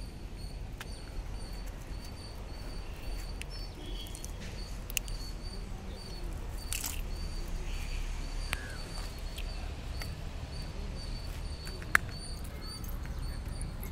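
Scattered clicks and rustles of a nylon cast net being gathered and handled, its weighted edge knocking, with one sharper click near the end. Underneath are a low wind rumble on the microphone and a faint high chirp repeating about twice a second.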